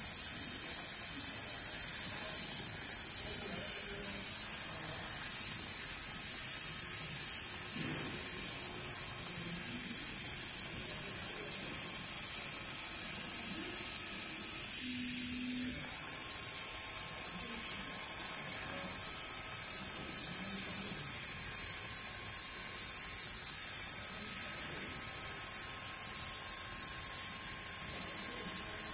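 Large-format automatic pattern sewing machine running, its head stitching across a clamped workpiece with a steady high-pitched buzzing hiss that dips briefly about five seconds in.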